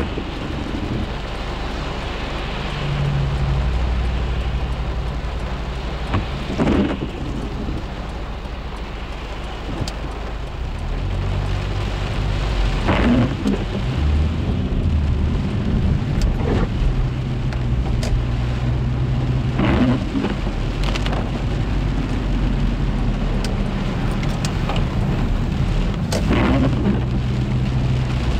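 Heavy rain drumming on a car's roof and windshield, heard from inside the cabin, with a low steady hum beneath it.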